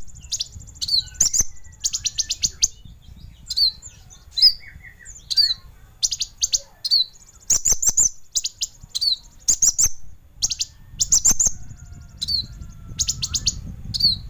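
Kolibri ninja sunbird singing: a fast, sharp series of high chirps and trilled bursts, repeated every half second or so with short gaps.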